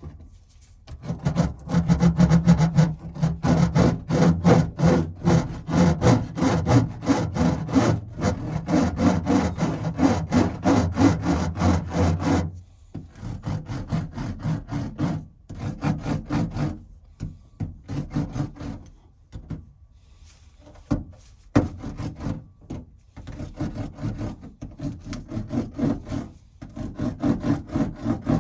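Hand roller worked quickly back and forth over adhesive sound-deadening mat, pressing it flat against the car body: a rhythmic rubbing and rumbling. The strokes are heavy for roughly the first twelve seconds, then lighter, with short pauses.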